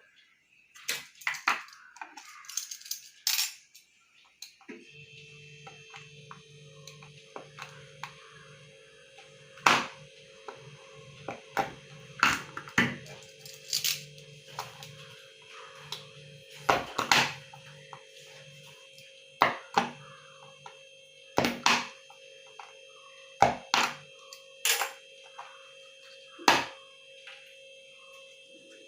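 Sharp hard-plastic clicks and knocks, irregular, every second or two, as a hole is worked into a plastic bottle. A steady hum with several fixed tones comes in about five seconds in and carries on underneath.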